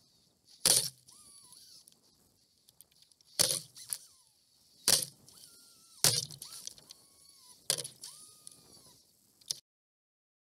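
Six sharp knocks or clicks picked up by an action camera strapped to an RC boat's hull, with faint whistled chirps between them.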